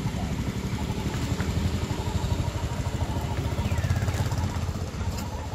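Small engine idling steadily, with a rapid low pulsing.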